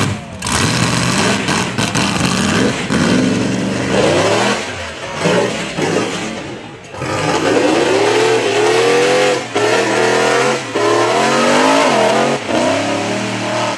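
Rock bouncer race buggy engine revving hard several times, its pitch climbing in long rising sweeps and dropping back between them.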